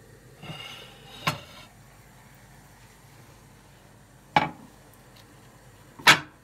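Kitchenware being handled on a counter: three sharp clinks and knocks of dishes or utensils, about a second in, about four seconds in and near the end, the first just after a short scrape.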